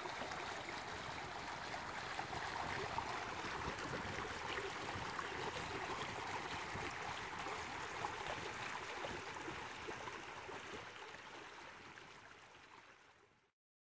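Shallow creek running over stones in a small riffle: a steady babbling rush of water that fades out near the end.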